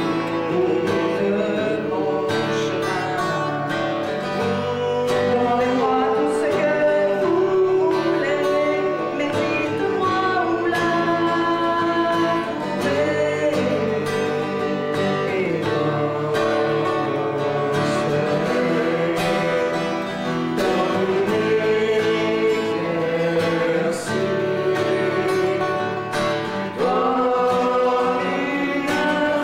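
A woman singing a song in French, accompanied by a strummed acoustic guitar.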